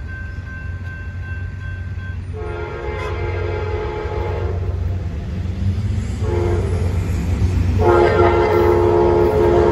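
Amtrak passenger train's horn sounding its grade-crossing warning as the train approaches: a long blast about two seconds in, a short blast around six seconds, then a long blast from about eight seconds that runs on. Under it, the train's rumble grows steadily louder as it nears.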